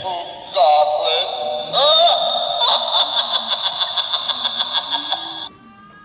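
Battery-powered Halloween pumpkin doorbell playing its recorded spooky sound effect through its small, tinny speaker: a voice-like sound with sliding pitch, then a fast pulsing sound at about six pulses a second. It cuts off suddenly about five and a half seconds in.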